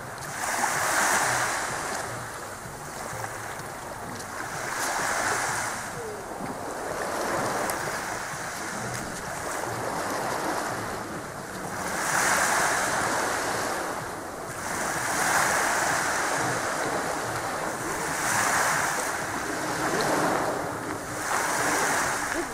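Small sea waves washing onto the shore, the surf swelling and fading every few seconds.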